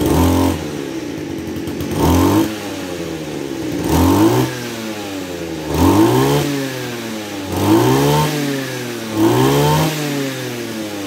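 Kawasaki TJ27 27cc two-stroke brush cutter engine blipped up from idle six times, about every two seconds, each rev rising quickly in pitch and falling back to a steady idle. Its throttle response is quick and punchy.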